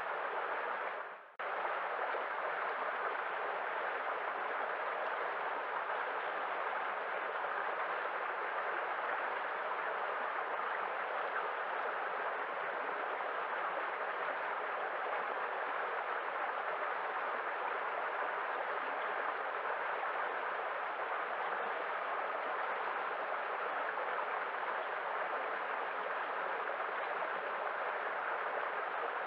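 Steady rushing of a waterfall, an even wash of falling water with no other sounds. About a second in it briefly fades out and then cuts straight back in.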